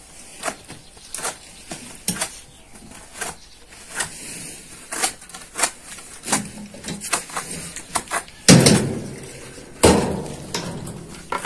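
Irregular sharp knocks and clatter of manual building work, with two heavy thuds near the end.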